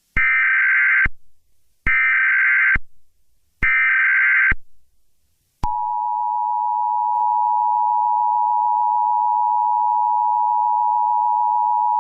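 Emergency Alert System tones: three short bursts of SAME header data, each about a second long with a pause between them, then about halfway through the steady two-tone EAS attention signal starts and holds. Together they mark the start of a new emergency alert broadcast.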